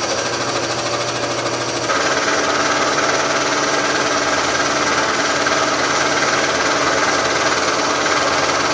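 Scroll saw running at a very slow speed, its reciprocating blade resawing a thin sliver off the edge of a 2-inch board. About two seconds in, the cutting gets a little louder and brighter.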